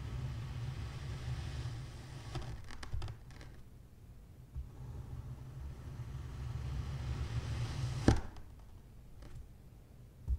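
A thin knife slicing down through a soft, crumbly block with a faint rustling crunch, and one sharp knock about eight seconds in, with a smaller click near the end. A steady low hum runs underneath.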